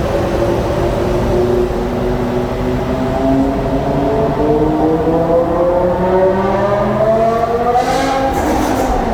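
BMW M5's V10 engine accelerating in a tunnel, its pitch climbing steadily for about eight seconds, then falling near the end at a gear change.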